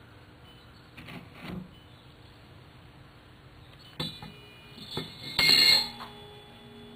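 Round wire grate being set into a steel burn pan made from a cut-down propane tank: light metal clinks, then a loud clank as it drops to the bottom, and the tank's steel shell rings on afterwards.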